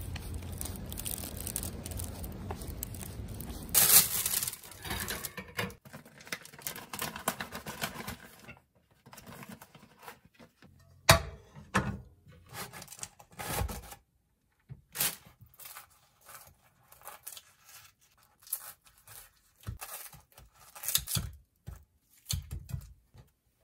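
After a few seconds of background music, thin plastic carrier bags rustle and crinkle as they are handled, with a sharp clink of a ceramic plate on the counter. Near the end, kitchen scissors snip through crisp fried hotteok in a series of short cuts.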